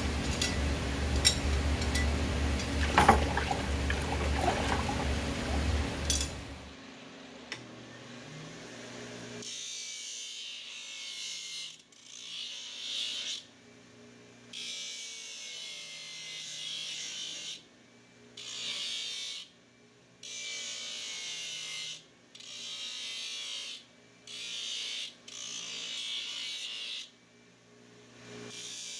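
A belt grinder motor runs while a steel horseshoe is pressed to the sanding belt in repeated passes of one to three seconds, each pass a gritty rasp with short pauses between. Before that, for about the first six seconds, there is a loud hiss with a low hum and a few sharp clicks that cuts off abruptly.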